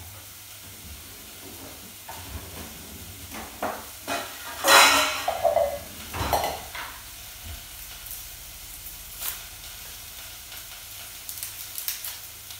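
Carrot pieces sizzling steadily as they roast in a hot pot. About five seconds in a stainless steel bowl knocks and clatters as it is set on the counter, with a second knock a second or so later, and small clicks and rustles of onion skin being peeled near the end.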